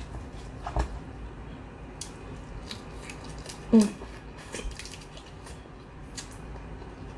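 Crab leg shells cracking and snapping in the hands, a scatter of sharp clicks and crackles, with the wet sounds of sucking crab meat from the shell. About four seconds in comes one short, loud vocal sound.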